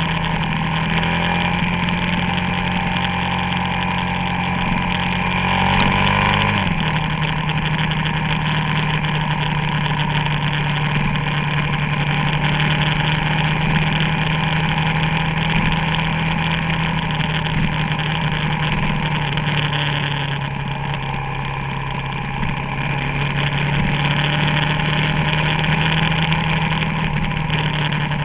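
Suzuki DR-Z400SM's single-cylinder four-stroke engine running at a steady cruise, heard from on the bike. The engine note climbs a little and then drops sharply about six seconds in, then holds steady again.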